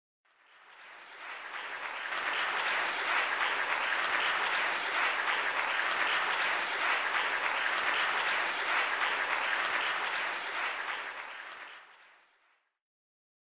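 A theatre audience applauding. The applause fades in over the first couple of seconds, holds steady, then fades out and stops about twelve and a half seconds in.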